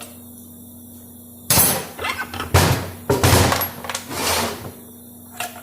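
Metal parts of a Dodge 46RE automatic transmission clanking and scraping as the internals are pulled out of the case after the front pump. There are several loud spells of clattering, starting about a second and a half in and stopping near the end.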